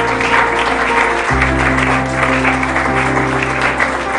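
A roomful of people applauding with continuous, dense clapping. Under it runs background music of long held chords that change about a second in.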